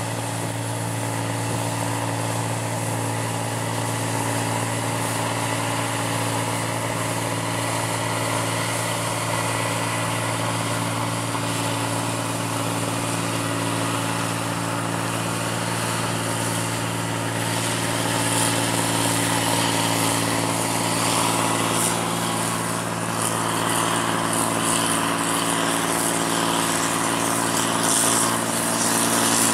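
Rice combine harvester on crawler tracks running steadily while harvesting paddy: a constant diesel engine note with the machine's threshing and straw-handling noise. About two-thirds of the way in it grows a little louder with more hiss.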